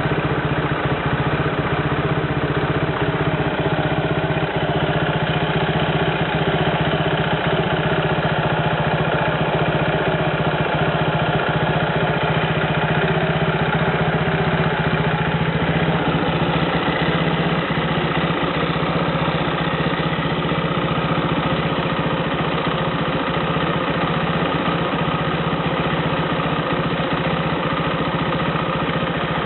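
Suzuki GSR125 single-cylinder four-stroke engine idling steadily, with an abnormal noise (異音) in its running that the owner records but does not name.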